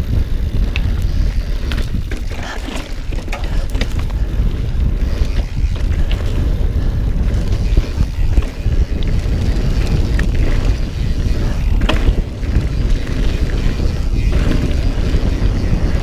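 Wind buffeting the microphone over the rumble of a mountain bike rolling fast down a dirt singletrack trail, with scattered clicks and knocks as the bike rattles over bumps.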